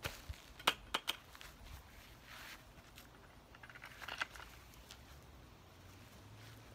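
A few light clicks in the first second, then soft brief rustles: hands handling plastic planting buckets and potting soil.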